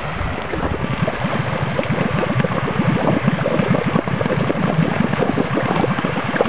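Purple smoke grenade burning under water, its gas churning up through the shallow water in a steady, rapid bubbling and gurgling.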